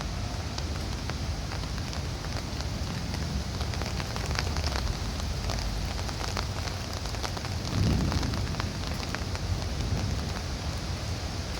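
Heavy rain falling steadily, with many individual drops ticking close by. A brief low rumble swells up about eight seconds in.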